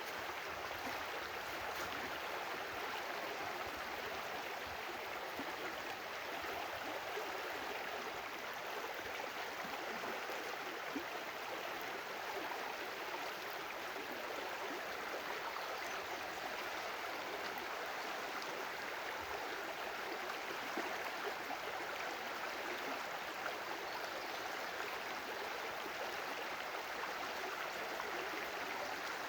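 A stream of running water flowing steadily.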